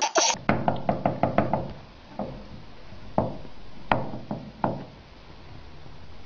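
A child's laughter cuts off, then comes a fast run of short knocks, about seven a second for a second or so, followed by five single knocks spaced out over the next few seconds.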